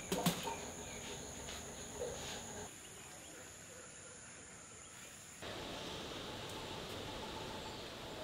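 Garden ambience with a steady high-pitched insect drone. A sharp click comes just after the start. The background shifts abruptly twice and ends as an even hiss.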